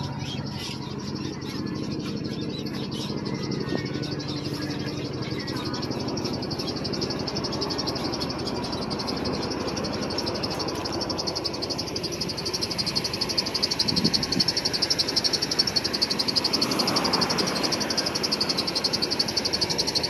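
Dense chorus of small calling frogs and insects: a steady, high, fast-pulsing trill that grows louder about halfway through. Under it a low steady hum fades out within the first several seconds.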